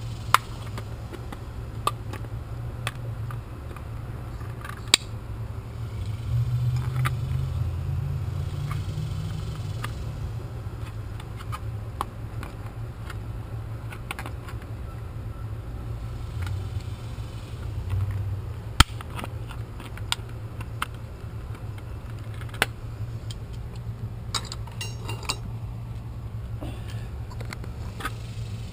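Scattered clicks and metallic clinks of tools and small metal parts being handled, over a steady low rumble that swells for a few seconds after the first quarter.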